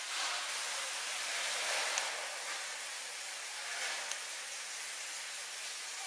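Steady hiss of background noise, with a couple of faint clicks.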